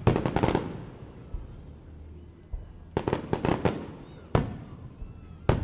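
Fireworks bursting in sharp bangs: a rapid cluster at the start, a single bang, another cluster about three seconds in, then single bangs, each trailing off with echo.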